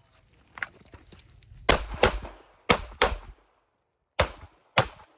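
Beretta 92FS 9mm pistol firing six shots: two quick pairs about a second apart, then two single shots, each with a short echo trailing off. A faint click of the draw comes just before the first shot.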